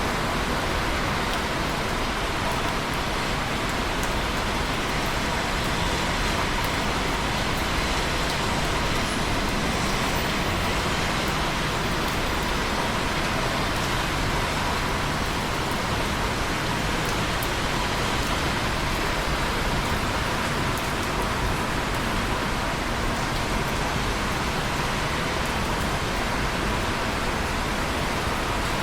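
Steady rain falling, an even hiss of many drops with faint scattered ticks and no change in strength.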